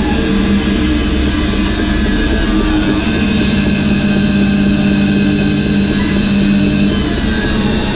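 Bandsaw running steadily as its blade cuts a curve through a wood burr rotated on a circle-cutting jig.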